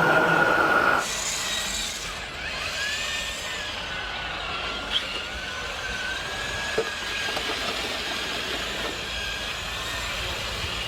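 Radio-controlled model machine running: a loud hissing noise with a steady tone cuts off suddenly about a second in, then a fainter electric motor whine wavers up and down in pitch, with two sharp clicks in the middle.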